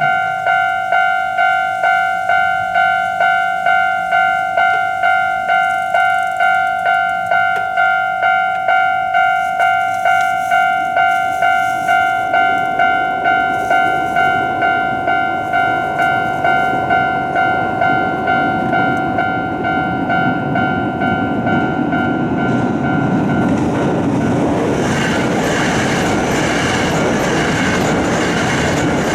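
Japanese level-crossing alarm ringing its repeated electronic "kan-kan" bell, about two strikes a second. A train approaches and passes, its wheels clattering on the rails and drowning out the bell over the second half.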